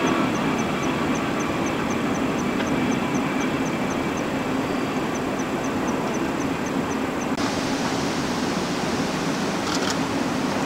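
Union Pacific double-stack intermodal freight train rolling across a high steel trestle bridge: a steady, low rolling noise from the container cars. A faint high tick repeats about three times a second for the first several seconds.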